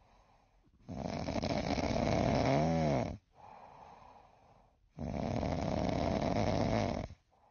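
Sleeping ginger tabby cat snoring: two long snoring breaths about four seconds apart, with quieter breaths between. The first snore ends in a brief whistle that rises and falls.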